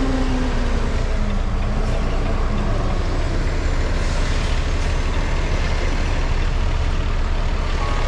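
Semi-truck diesel engine running at low speed, heard from inside the cab, a steady low hum with a slight fall in pitch in the first couple of seconds.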